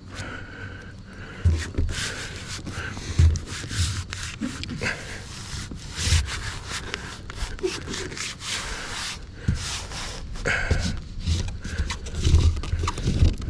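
Irregular rubbing and scraping with scattered knocks and low thumps, as of materials being handled and worked by hand.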